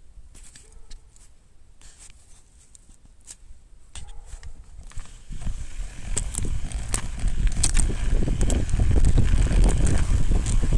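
Mountain bike on snow: scattered clicks and crunches, then about halfway through a low rumble builds and holds steady as the bike gets rolling, with clicks over it.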